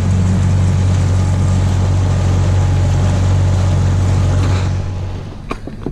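Tohatsu 15 hp outboard motor on a small rigid inflatable boat, running steadily at cruising speed with a low hum. About five seconds in, the engine sound dies away, and a few short clicks follow.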